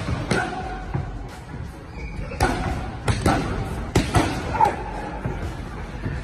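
Boxing gloves landing on a coach's focus mitts and body pad in quick combinations: sharp slaps, some in pairs, a fraction of a second to a second apart, with music playing underneath.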